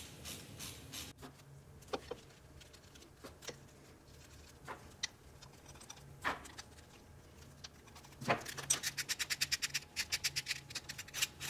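Hand ratchet clicking in quick, even runs while it snugs lug nuts onto a brake-lathe hub adapter plate: one run at the start and a longer one from about eight seconds in, with scattered single metal clinks between.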